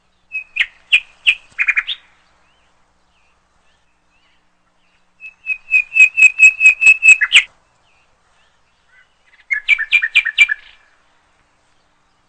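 A bird calling in three bursts of quick, repeated chirps, about six notes a second, the middle burst the longest and loudest.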